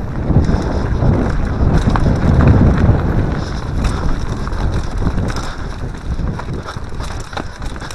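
Wind buffeting the microphone and tyres rumbling over a dirt trail as a mountain bike descends at speed, with sharp ticks and rattles from the bike over roots and stones. Loudest about two to three seconds in.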